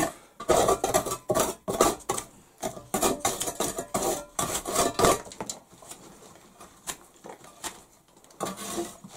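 Knife blade whittling a small piece of wood: a run of quick scraping strokes and clicks, thinning out and getting quieter about halfway through.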